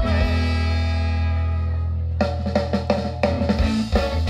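A live ska band with trumpet, saxophone, electric guitars, bass and drums. A held chord rings out and fades for about two seconds, then the drums and guitar come back in with a steady beat.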